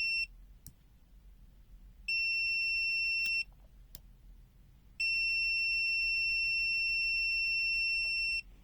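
ANENG 683 multimeter's continuity beeper sounding a steady high-pitched tone as the test leads make contact in auto continuity mode: a tone that cuts off just after the start, a beep of about a second and a half, then a longer beep of about three and a half seconds that stops near the end.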